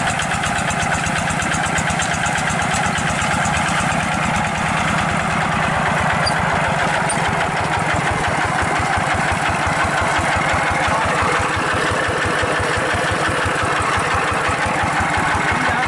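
Kubota RD85 hand tractor's single-cylinder diesel engine running steadily with a rapid, even beat.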